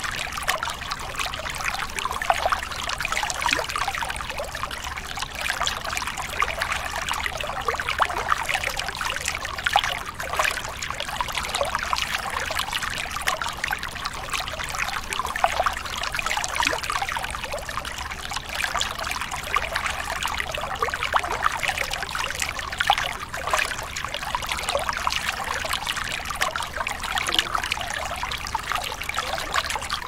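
River water flowing steadily, with a dense patter of small splashes.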